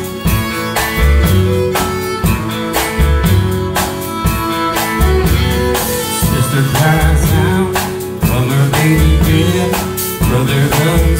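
Country band playing: fiddle over strummed acoustic guitars and a bass line, with a steady beat.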